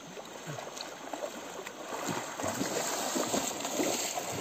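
River water splashing and sloshing around people wading and swimming waist-deep, growing louder about halfway through.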